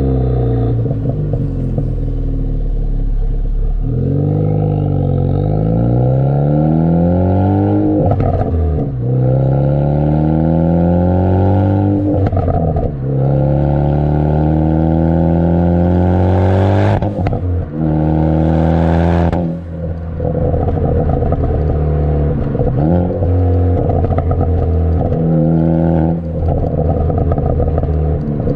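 Ford Focus ST's turbocharged four-cylinder through a Borla cat-back exhaust, heard right at the tailpipe, revving up again and again with its pitch climbing each time. Each time the revs drop off there are sharp pops and crackles, the overrun pops that a pops-and-crackles engine tune adds.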